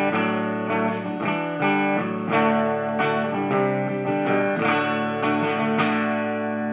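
Electric guitar played through a Marshall MG100FX solid-state half stack: a run of picked notes and chords, with a fresh attack about every half second. The last chord, about six seconds in, is left ringing and fading.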